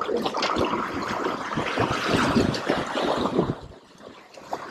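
Sea waves washing and splashing against the rocks of a jetty, with wind buffeting the microphone; the rush of water dies down about three and a half seconds in.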